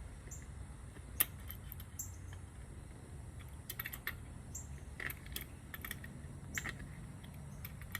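Scattered light metallic clicks and taps of pliers and a wrench on a small bolt and steel washer as the bolt is worked loose by hand, over a steady low hum.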